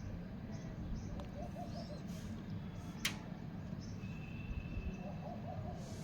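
Faint bird calls, a few short wavering notes twice, over a steady low background rumble, with one sharp click about three seconds in.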